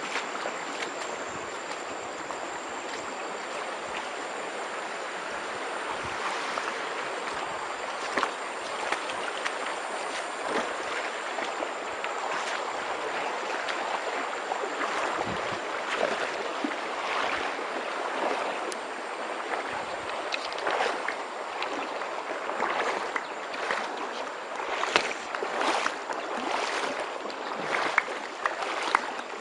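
Flowing stream water: a steady rush, with irregular sharp splashes and knocks that come more often near the end.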